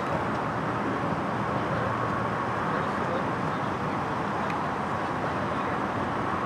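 Steady, even drone of road traffic and vehicle engines, with no sudden sounds standing out.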